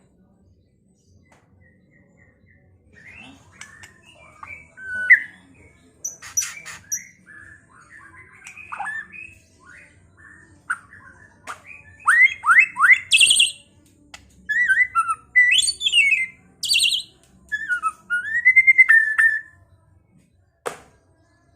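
White-rumped shama singing a varied song: rising and falling whistled phrases, quick trills and harsh chatter, in bursts with short pauses between. A single sharp click near the end.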